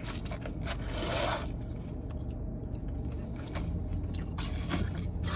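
Plastic fork scraping and picking food out of a takeout container, with one longer scrape about a second in and small clicks and chewing sounds around it.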